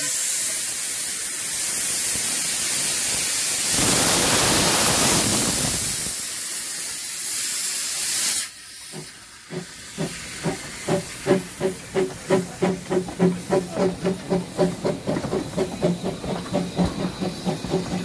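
A pair of Quarry Hunslet narrow-gauge steam locomotives hissing steam from their open cylinder drain cocks; the hiss cuts off about eight seconds in. From about ten seconds in they pull away with evenly spaced exhaust beats, about three a second.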